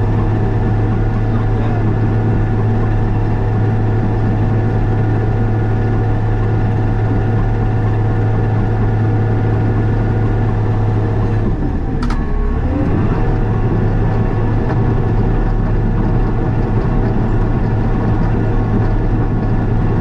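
Diesel engine of heavy earthmoving equipment running at a steady drone. About twelve seconds in the engine note briefly dips and wavers, with a sharp click, then settles back to the same steady drone.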